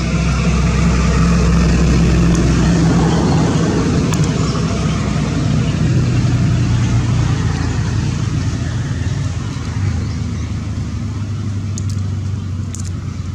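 A motor vehicle engine running steadily, a low hum that shifts in pitch a few times, with a constant noisy rush over it.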